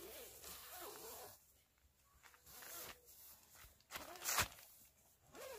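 Plastic tarp crinkling and rustling as someone steps and shifts their feet on it, the loudest crackle about four seconds in. A few faint short rising-and-falling whines can be heard between the crackles.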